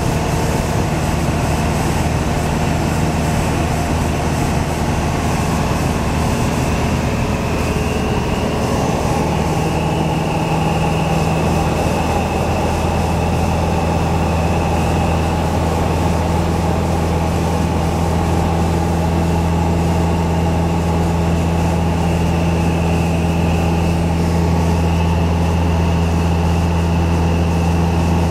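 Light aircraft's piston engine and propeller running steadily in flight, heard from inside the cockpit as a loud, even drone. Its note strengthens about nine seconds in.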